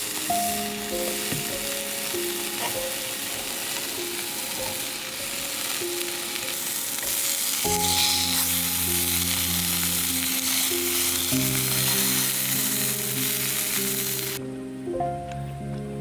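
Food frying in a hot pan, a loud steady sizzle that cuts off abruptly near the end, with gentle background music over it.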